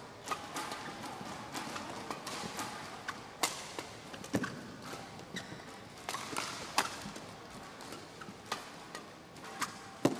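Badminton rally: a shuttlecock struck by rackets again and again at irregular intervals, each hit a sharp crack, with the hardest hits about a third of the way in, near the middle and near the end.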